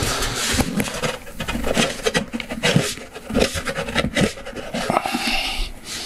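Painted sheet-metal roofing panel being bent and pressed by gloved hands: irregular rubbing with many short clicks and light knocks as the metal flexes and slides.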